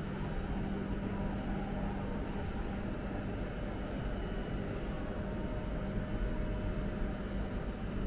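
Leo Express Stadler FLIRT electric multiple unit pulling into the station and running past along the platform: a steady rumble of wheels on rail with a faint steady hum.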